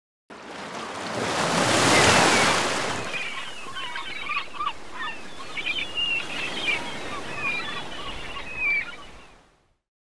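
A wave washes in, loudest about two seconds in, then surf continues under a run of short bird chirps and calls before everything fades out near the end.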